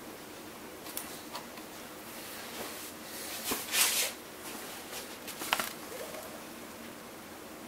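Handling noises from a small steel gear being worked off the hobbing arbor of a lathe and picked up: a few light clicks and a short rustling scrape, the loudest about four seconds in, with a sharp click about five and a half seconds in. The machine is not running.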